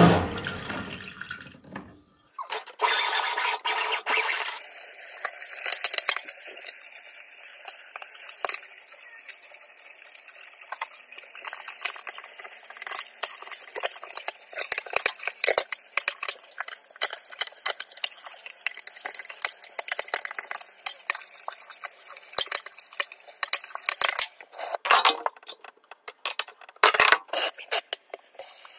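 A steady machine noise, the high-pressure drain washer, dies away in the first two seconds. Water then trickles and drips in the bath drain, with a short louder rush of water a few seconds in and scattered splashes, two of them louder near the end.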